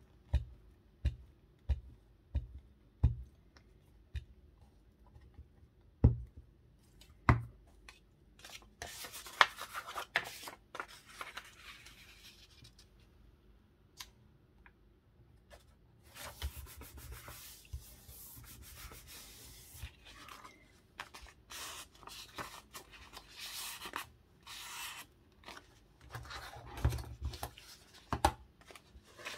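Paper being handled by hand. A series of light taps and knocks comes first, then stretches of paper rubbing and sliding, with a few soft knocks near the end.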